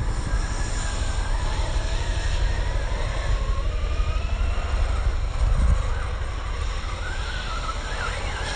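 Electric RC cars running: brushless motors whining, the pitch gliding up and down with the throttle, over a steady low rumble.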